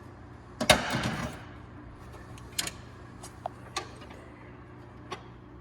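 Metal hand tools clanking on a homemade crank-pulley holding tool as it is tightened on the engine: one loud clatter under a second in, then a few separate sharp metallic clicks.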